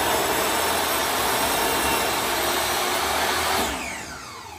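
Electric power saw cutting through a wooden board to trim off a rotted end. About three and a half seconds in, the trigger is released and the blade winds down, falling in pitch.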